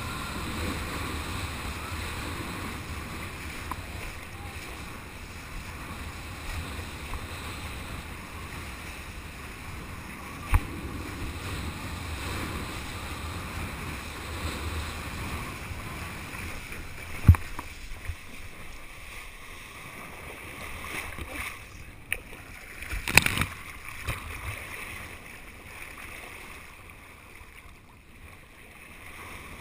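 Wind rushing over the microphone and water hissing under a kiteboard riding at speed, easing in the second half. A few sharp knocks break through, the loudest about seventeen and twenty-three seconds in.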